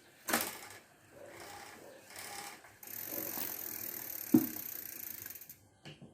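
Rapid ratchet clicking from the bicycle, with a sharp knock about four seconds in.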